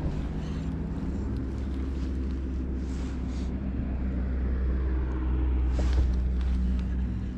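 Low, steady engine rumble of vehicle traffic on a road bridge, swelling to its loudest about six seconds in and then easing off.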